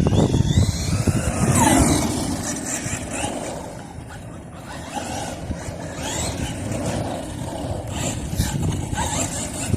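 Brushless electric motor of a radio-controlled Maverick Strada XT Evo truck whining up and down in pitch as it speeds up and slows, several times, with the rumble of its tyres on the ground. The whine is loudest in the first two seconds.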